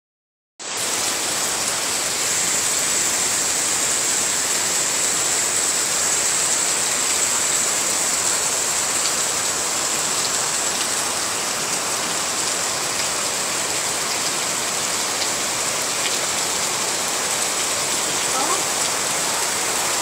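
Heavy monsoon rain falling steadily on wet ground, a dense, even hiss that starts abruptly about half a second in.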